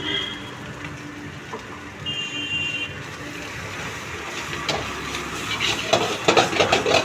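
Kitchen cooking sounds: a steady hiss, with a short high tone about two seconds in and a run of knocks and clatter near the end.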